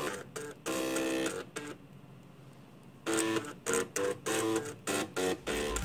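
Floppy disk drive head stepper motors driven by an Arduino Uno, buzzing out a tune in short pitched notes. The notes stop for about a second partway through, then start again. A deep bass from other music comes in near the end.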